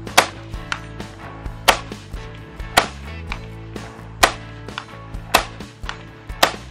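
AR-15 semi-automatic rifle firing six single shots, about one every second to second and a half, emptying the rest of the magazine.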